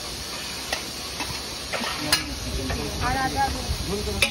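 A steel ladle clinks a few times against steel pots and a plate as food is dished out, over a steady hiss of background noise. Faint voices can be heard in the middle.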